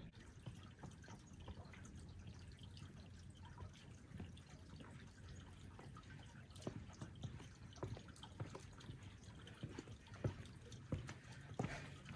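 Footsteps on outdoor trail steps and dirt, a scatter of soft irregular taps that grow louder over the second half as the walker comes closer, over a faint, quiet forest background.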